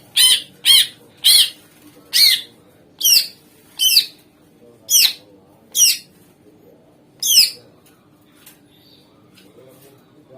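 Cucak ijo (greater green leafbird) singing: a string of about nine loud, sharp, sweeping whistled notes in quick, uneven succession, then a pause of a few seconds.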